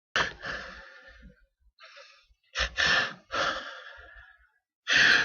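A person's pre-sneeze hitching: several sudden, breathy gasps and exhales as a sneeze builds, each fading off over a fraction of a second.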